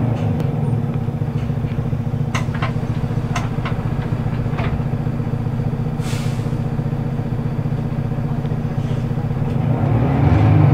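Scania L94UB bus's diesel engine idling steadily, heard from inside the cabin, with a few sharp clicks in the first half and a short hiss about six seconds in. Near the end the engine revs rise as the bus pulls away.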